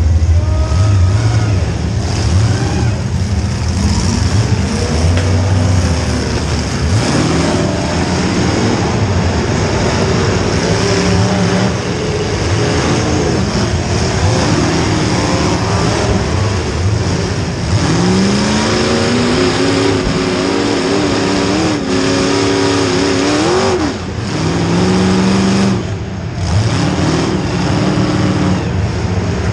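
Demolition derby car engines running and revving, their pitch rising and falling over and over, with several engines heard at once.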